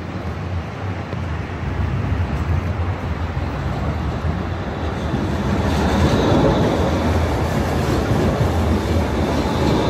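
Pesa Swing low-floor tram approaching and passing close by, its wheels rumbling on the rails. The sound grows steadily louder and is loudest from about six seconds in as the tram goes past.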